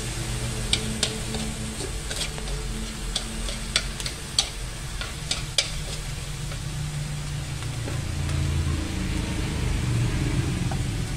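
Minced meat sizzling in a steel wok as it is stir-fried with chopsticks, which click sharply against the metal about eight times in the first half. A steady low hum runs underneath.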